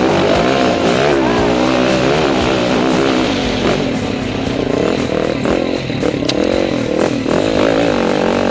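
Rally motorcycle engine heard onboard, revving up and down continuously as the bike is ridden hard over a sandy off-road track.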